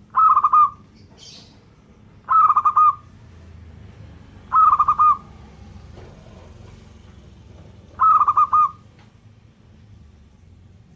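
Zebra dove (perkutut) cooing: four short, rapidly pulsed coo phrases, each about half a second long, spaced about two seconds apart with a longer gap before the last.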